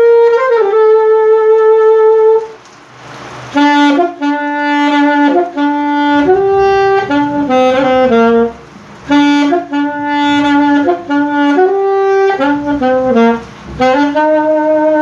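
Lade alto saxophone played solo: a long held note, a short pause with a breath, then a melody of short stepping notes, the phrase played twice, ending on a held note.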